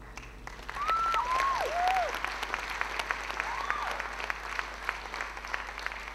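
Audience applauding, starting about half a second in, with a few whistled notes about a second in and once more near the middle.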